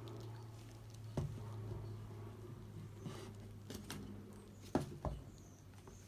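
Handling sounds of a painted canvas being tilted and lowered back onto its plastic cup supports: a few light taps and knocks, the two loudest close together near the end, over a steady low hum.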